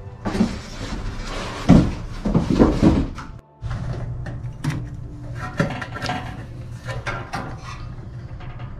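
Cardboard packing being lifted and moved, with loud scraping and rustling for the first three seconds. This is followed by the stainless-steel fire pit pan being shifted and turned on a padded table, with scattered light knocks and clicks over a low steady hum.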